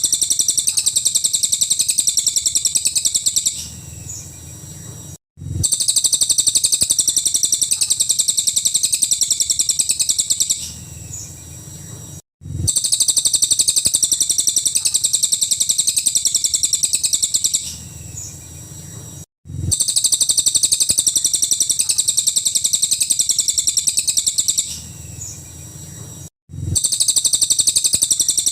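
Cililin songbird singing rapid, high-pitched trills of fast repeated notes, the "tembakan" burst style of song. A stretch of about three and a half seconds of dense trilling, then a softer part and a brief break, repeats every seven seconds or so as a looped recording.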